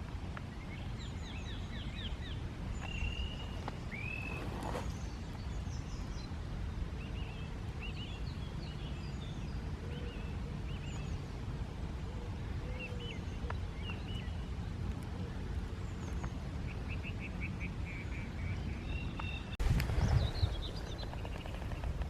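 Several small songbirds chirping and trilling over a steady low rumble.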